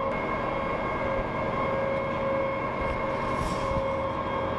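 M270 MLRS rocket launcher running with a steady mechanical drone and whine while its boom hoist lifts a rocket pod during reloading. Faint clicks come through about three and a half seconds in.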